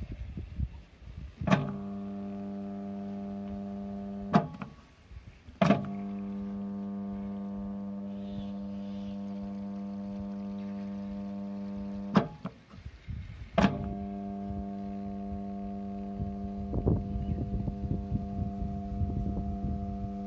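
Motif single-phase submersible pump control unit being switched on and off with its push-button starter. Each press gives a sharp click of the contactor. While it is switched on there is a steady electrical mains hum, which starts three times and stops twice.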